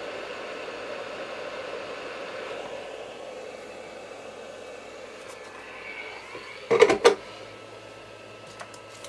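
Steady airflow hiss of an SMD rework station's hot air gun, fading about three seconds in. A brief loud clatter of knocks follows about seven seconds in, from tools being handled.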